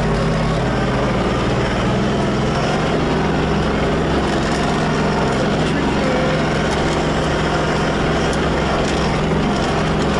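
Tractor engine running steadily as the tractor drives along, heard from the driver's seat.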